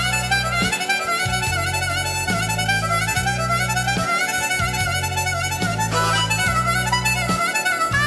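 Natural-minor-tuned diatonic harmonica playing a slow blues in B minor, with bent, wavering notes. Underneath, low sustained accompaniment notes change every second or so.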